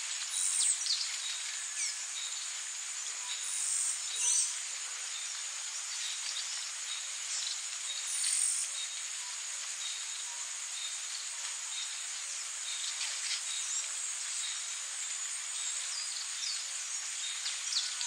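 Steady high-pitched chirring of insects, with a few short bird-like chirps scattered through it.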